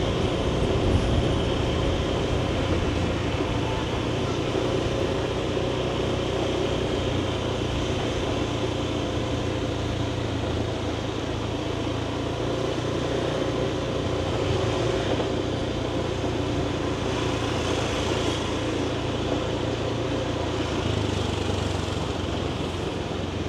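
Motor scooter engine running at a steady cruise while riding, with road and street traffic noise around it.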